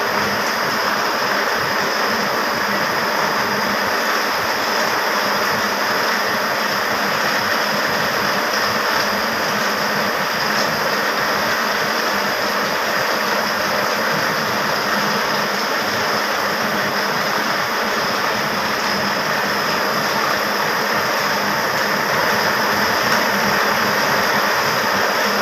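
Textile machinery running with a steady, loud mechanical din: a sectional warping machine winding warp yarn from the creel onto its drum.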